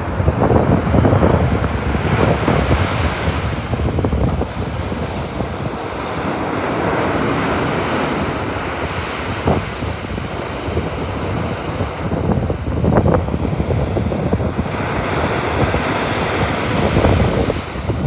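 Baltic Sea waves breaking and washing up the shore, swelling and easing every few seconds, with wind buffeting the microphone.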